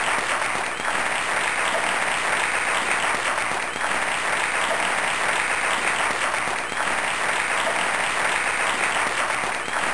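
Steady, dense crowd applause, a continuous wash of many hands clapping.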